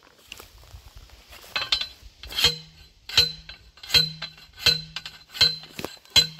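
A manual T-post driver pounding a steel T-post into the ground. It makes a string of metal-on-metal clanks, each with a short ring, about one every three-quarters of a second, starting about a second and a half in.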